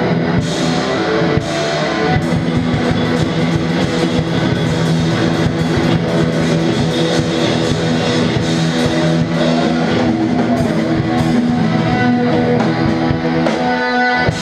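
A live rock band playing loudly: electric guitars holding sustained chords over a pounding drum kit.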